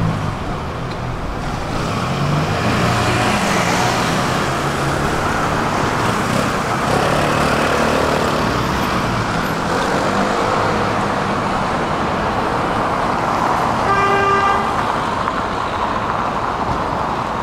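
Steady city street traffic noise, with a short car horn toot about fourteen seconds in.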